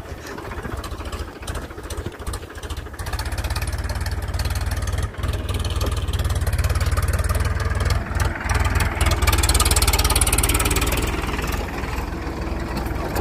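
Powertrac Euro 50 tractor's diesel engine running steadily while the tractor drives along, heard close up, growing louder about four seconds in.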